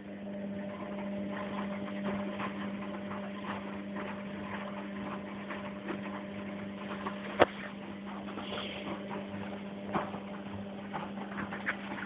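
Washing machine running with a steady motor hum, starting at the beginning and cutting out near the end, with many irregular clicks and knocks over it; the loudest knock comes about seven seconds in.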